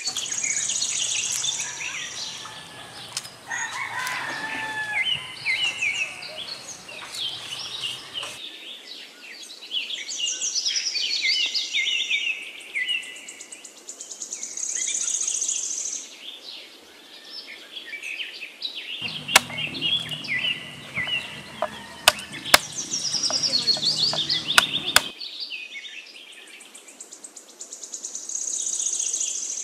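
Birds chirping and trilling all around, many short repeated calls. A few sharp clicks and knocks stand out between about three-quarters and five-sixths of the way through.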